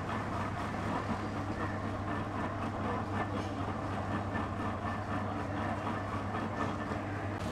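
Sugarcane juice press crushing a bundle of cane stalks between its geared steel rollers: a steady mechanical hum with a faint rhythmic clatter.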